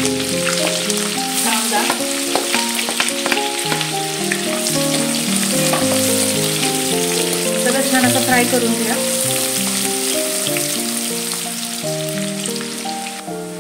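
Hot oil with cumin seeds and green chillies sizzling and crackling in a nonstick kadhai, then chopped onion frying in it as it is stirred with a spatula. Background music of slow piano-like notes plays over the frying.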